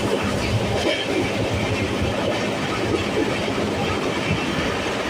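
Train running along the tracks: steady noise of wheels on rails.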